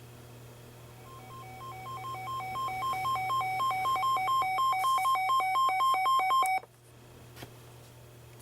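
Weather alert radio's electronic alarm: a fast beeping that alternates between two pitches, grows steadily louder for about five seconds, then cuts off abruptly. A low steady hum runs underneath.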